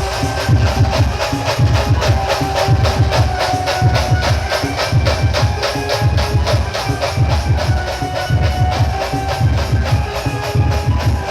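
Loud music played through a DJ sound system: fast, even percussion strokes over a heavy bass beat, with a melody of held notes.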